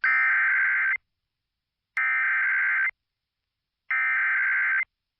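Emergency Alert System SAME header on NOAA Weather Radio: three bursts of digital data tones, each about a second long and about a second apart, with silence between. They encode and announce the start of a new alert, here an immediate evacuation.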